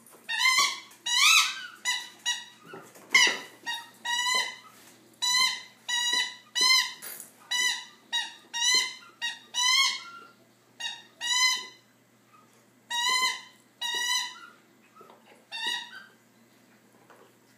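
A dog's rubber squeaky toy squeaking again and again as the dog bites down on it: about twenty short squeaks at an irregular pace, thinning out and stopping shortly before the end.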